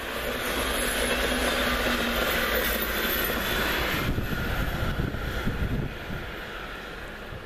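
Electric-hauled InterCity passenger train running past on curved track: steady wheel and rail noise that drops off about six seconds in as the train moves away.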